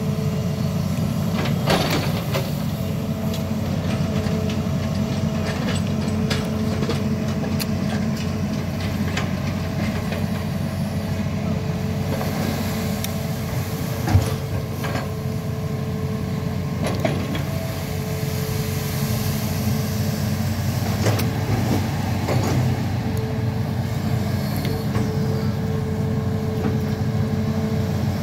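Hitachi amphibious excavator's diesel engine running steadily under load while the arm and bucket dig, with a steady whine over the engine note and a few short clanks, the sharpest about fourteen seconds in.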